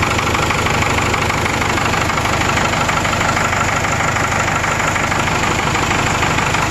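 Cummins 4BT 3.9 L four-cylinder turbo diesel running steadily with a loud, even clatter. The mechanic judges the engine to need piston rings: compression is low across all cylinders and it has blow-by.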